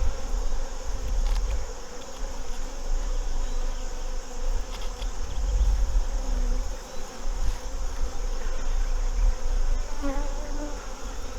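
A honeybee colony buzzing steadily from an opened hive, with a low rumble underneath.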